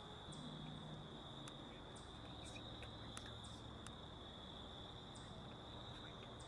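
Faint, steady high-pitched trilling of crickets, unbroken throughout, with a few light ticks scattered over it.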